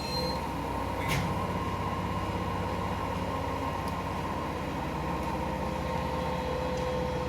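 Toyama Chiho Railway 17480 series electric train standing after pulling in, its onboard equipment giving a steady, even hum with a constant whine above it.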